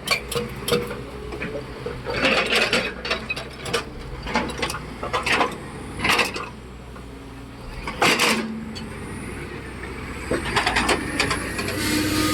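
Diesel earthmoving machines, a wheel loader and an excavator, running with a steady low engine hum under repeated knocks and clattering of metal and rock as they work.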